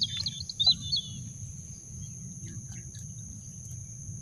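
A steady high-pitched insect drone, typical of crickets in long grass, with a bird twittering in quick chirps during the first second. A low outdoor rumble runs underneath.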